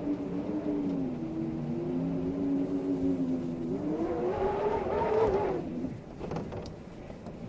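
Wind howling in a low moaning tone that wavers, then rises in pitch and grows louder about four seconds in before dying away near six seconds, leaving a fainter rush with a few light ticks.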